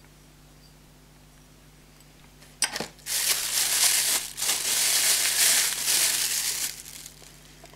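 Clear plastic bag crinkling as hands unwrap a solar LED light from it: a short rustle about two and a half seconds in, then steady crinkling for about four seconds before it dies away.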